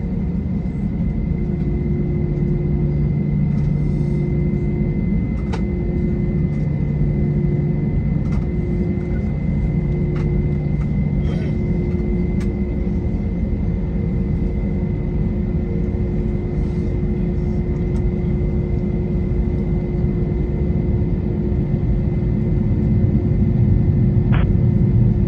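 Steady low rumble and hum inside the cabin of an Airbus A321 on the ground, with a faint steady whine and a few light ticks.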